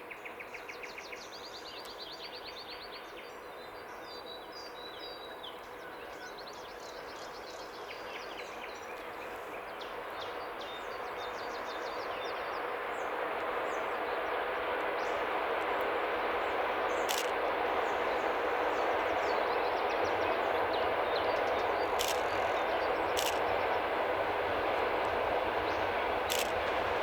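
Small birds singing, then an approaching passenger train hauled by a TEP70 diesel locomotive, its noise swelling over several seconds into a steady loud rush. A few sharp clicks come in the second half.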